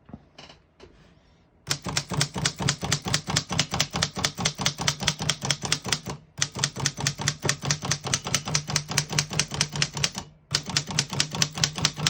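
Rapid, even keystrokes on a 1918 Corona Folding No. 3 portable typewriter, typebars striking the platen several times a second, with none of the keys sticking or skipping. A few faint clicks come first, and the typing starts about two seconds in and pauses briefly twice.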